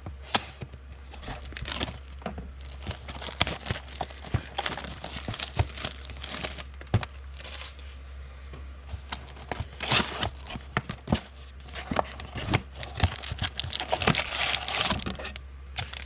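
Foil wrappers of 2020 Panini Legacy football card packs being torn open and crinkled by hand: irregular crackling and rustling with many sharp clicks, busiest near the end.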